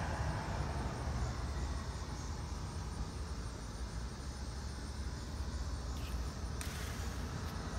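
Steady low background rumble of the kind distant traffic makes, with a faint hiss over it; a brighter hiss comes in suddenly about two-thirds of the way through.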